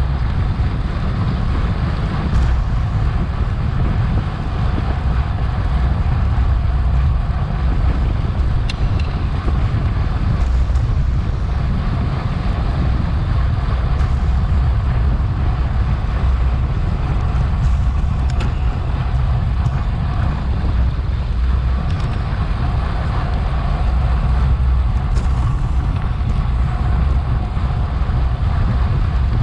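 Steady wind rush and low rumble on the microphone of a bicycle-mounted action camera riding at race speed, with a few faint clicks.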